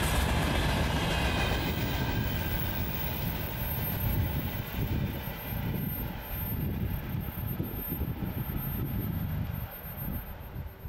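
A train running past on the rails, its low rumble slowly fading as it moves away, with several higher tones that die out over the first few seconds.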